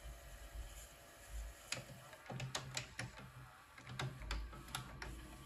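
Akai VS-G205EDG VHS deck's tape transport in fast rewind: a low steady motor hum, with a run of sharp mechanical clicks from about two seconds in.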